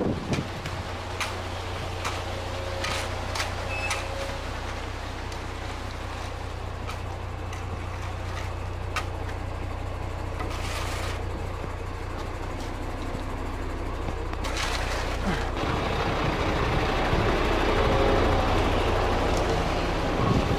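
A truck's diesel engine idling steadily, most likely the concrete mixer truck standing by during the pour. Scattered short clicks and scrapes sound over it, and the sound grows louder with a rushing noise over the last few seconds.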